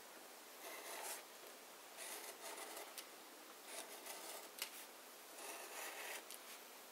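Craft knife blade cutting through chipboard on a cutting mat: a series of short, faint scraping strokes as the blade is run along the same line more than once through the thick board.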